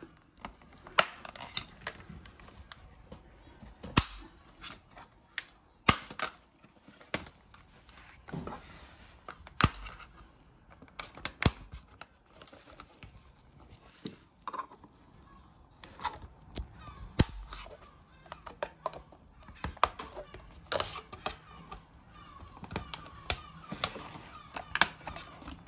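Flat screwdriver prying at the plastic housing of an HP CR278A printhead cleaning cassette: irregular sharp clicks and knocks of metal on plastic as the lid's clips are levered up.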